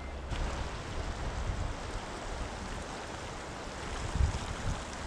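Fast, shallow river current rushing over rocks, a steady rush of water, with a few low bumps on the microphone about four seconds in.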